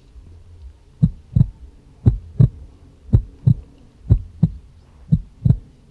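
Heartbeat sound effect: paired low thumps in a steady lub-dub rhythm, about one beat a second, starting about a second in.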